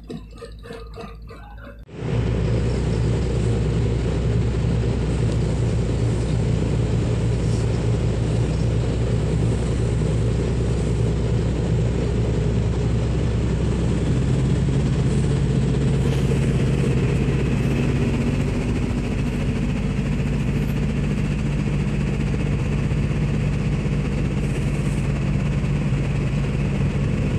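A ship's diesel engine running steadily, a deep, even drone that comes in abruptly about two seconds in.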